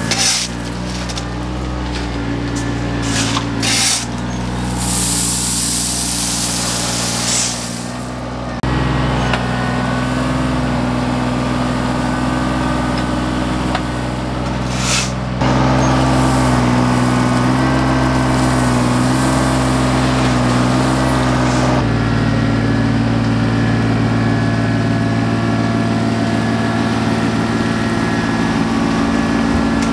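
John Deere 755 compact tractor's diesel engine running steadily as its loader bucket pushes and scrapes river rock. In the first eight seconds there is stone rattling and a long hiss.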